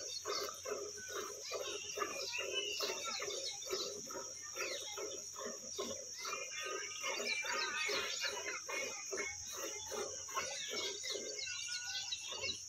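Milk squirting from a cow's teats into a steel bucket as it is milked by hand, in a steady rhythm of about three jets a second. Birds chirp in the background.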